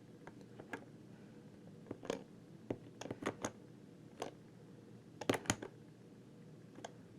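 Scattered light clicks and taps of a tool on a nut being carefully tightened onto a plastic mounting post glued back on with plastic-weld epoxy. The clicks come at irregular intervals, with the sharpest pair about five seconds in.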